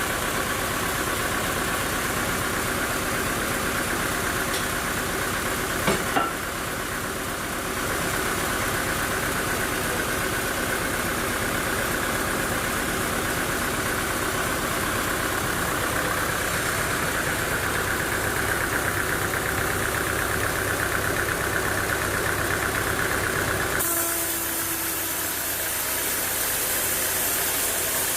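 Sawmill machinery running steadily with an engine-like drone, with a short sharp knock about six seconds in and an abrupt change in the sound near the end.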